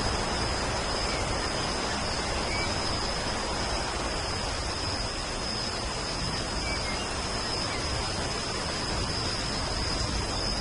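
Steady rain, an even hiss, with a continuous high-pitched tone held on one note above it and a few faint bird chirps now and then.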